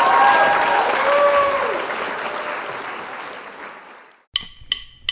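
Crowd applause with a few whistles, fading out over about four seconds, followed by three short, sharp musical hits.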